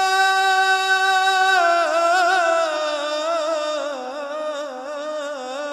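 Solo voice singing Islamic religious inshad unaccompanied: one long held note, then a slow melisma that winds downward in wavering ornaments.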